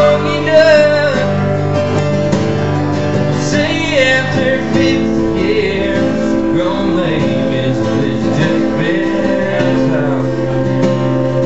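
Live acoustic country music: several acoustic guitars strumming and picking together, with a wavering melody line over the chords and no lyrics sung.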